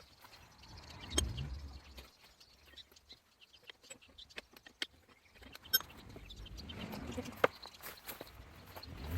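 Scattered metal clicks and knocks, with a dull thud about a second in, from clamp-type spring compressors being fitted to a car strut's coil spring.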